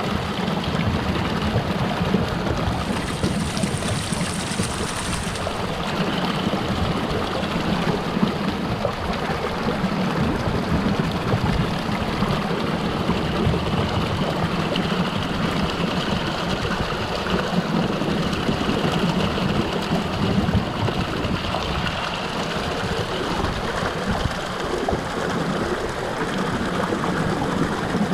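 Stream water flowing under a frozen ice sheet, a steady rushing and gurgling.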